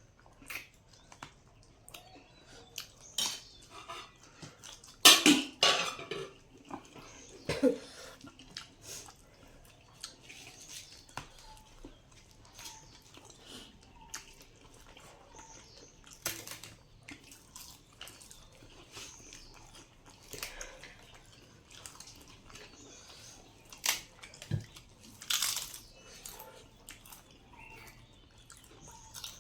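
A person eating a meal of rice and duck curry up close: chewing and mouth smacks, with scattered short clicks, loudest around five seconds in and again near the end.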